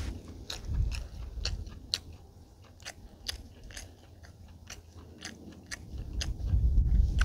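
Close-up chewing and biting of crispy-skinned grilled chicken: a string of irregular crunching clicks.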